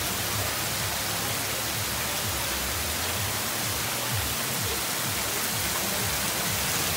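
Heavy rain pouring down and splashing on a road, a steady even hiss.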